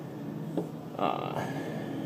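Handling noise at a model engine's ignition wiring: a sharp light click about half a second in, then a brief scraping rustle about a second in, over a faint steady low hum.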